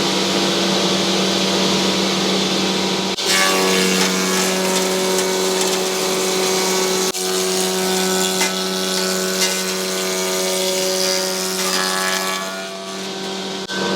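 Logosol combination planer-moulder running: a steady motor hum under the constant hiss of the cutter heads planing and profiling a board. The sound changes abruptly a few times.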